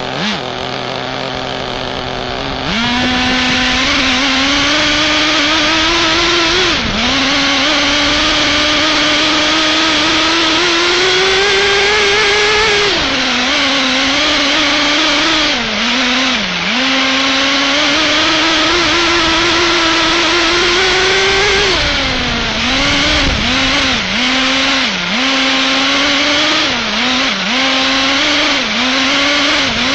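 HSP nitro RC truck's small two-stroke glow-fuel engine, recorded from on board the truck. It starts at a low idle, then about three seconds in the throttle opens and it runs at high revs, the pitch slowly climbing as the truck gathers speed. Near the end the note dips and picks up again several times as the throttle is eased and reopened.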